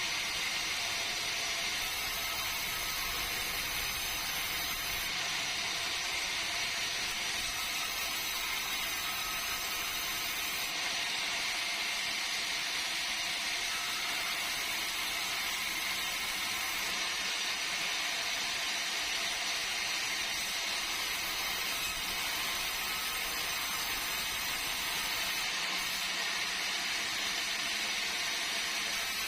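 Sawmill saw running, making a steady, even mechanical noise with no breaks.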